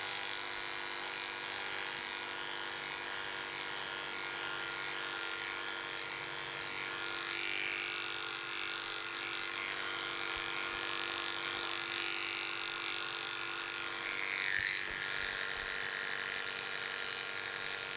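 Electric dog-grooming clippers with a 5F blade running with a steady hum as they cut through a wheaten terrier's coat on the cheek and neck.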